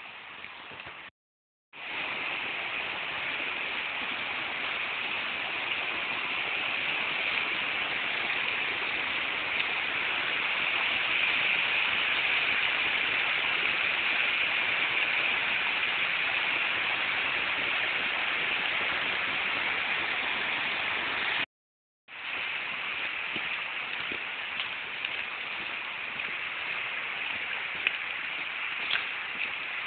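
Rushing water of a woodland stream running down a rocky channel, a steady rush that is loudest in the middle and a little lower after the sound cuts out briefly about 22 seconds in. The sound also cuts out briefly about a second in, and a few light ticks come near the end.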